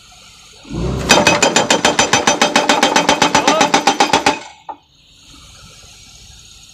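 Excavator-mounted hydraulic breaker hammer firing a fast, even burst of blows, about ten a second, for roughly three and a half seconds, starting about a second in. It is being test-fired while its nitrogen pressure and stroke adjuster are being set.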